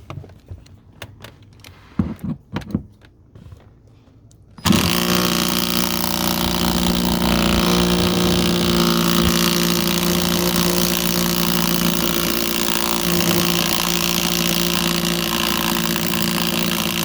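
Hercules 12-volt 3/8-inch cordless impact wrench hammering continuously on a tight nut. It starts suddenly about four and a half seconds in, after a few handling clicks and knocks, and runs steadily at high volume.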